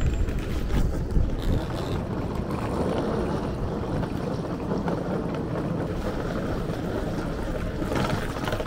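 Steady low rumble and running noise of a large vehicle in motion.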